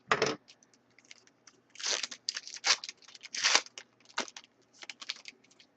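A trading card pack's wrapper being torn open and crinkled: a run of short crackling rips, the loudest about two, two and a half and three and a half seconds in.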